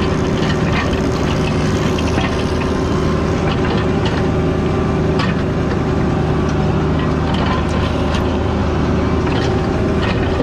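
Diesel engine of a CAT 304 mini excavator running steadily under load while digging, with scattered sharp clicks and scrapes over the hum.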